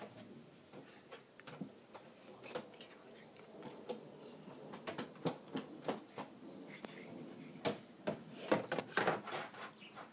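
Rustling and light clicks and knocks of props being handled on a puppet-theatre stage, busiest about nine seconds in, when a clear plastic tub is set down on the stage.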